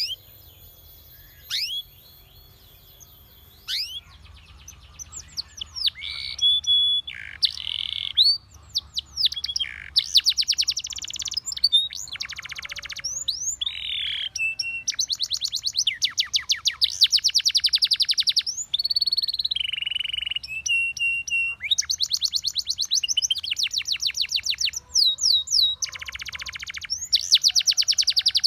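Spanish Timbrado canary singing: a few scattered chirps at first, then from about four seconds in a near-continuous song of fast trills and rolls, runs of rapidly repeated notes lasting a second or two, with quick rising and falling sweeps between them.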